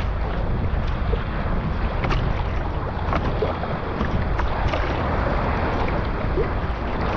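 Wind buffeting the microphone, with water splashing and lapping irregularly around a sea kayak underway in a moderate breeze.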